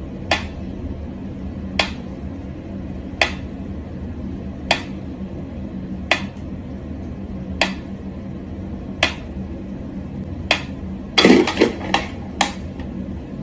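Mechanical pyramid metronome ticking slowly and evenly, about one tick every second and a half, over a steady low hum. Near the end, a quick cluster of sharper clicks and a dull thump breaks the rhythm.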